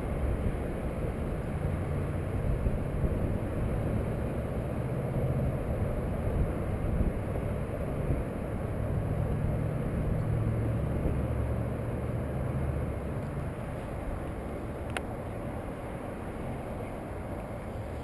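Low, uneven outdoor rumble of street traffic and wind on the microphone, with one sharp click near the end.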